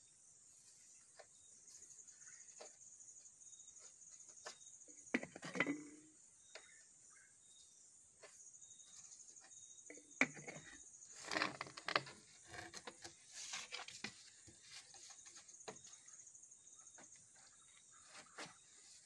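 Faint knocks and scrapes of PVC drainage pipe being handled and pushed into a PVC tee fitting, louder about five seconds in and again from about ten to twelve seconds in, over a steady high-pitched background tone.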